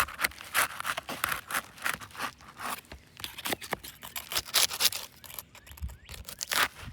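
Asphalt roof shingles being lifted and pried loose to reach their nails: a run of irregular scraping and crackling strokes.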